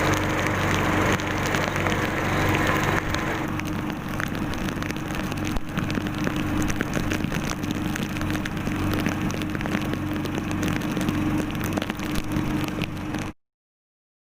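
Heavy rain falling, a dense hiss of countless drops, over a steady low hum. The sound cuts off suddenly near the end.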